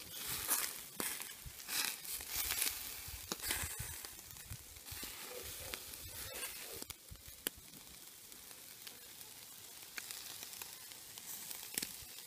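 Whole brown trout grilling on a wire rack over charcoal: a steady sizzle with frequent crackles and pops, busiest in the first few seconds and sparser after.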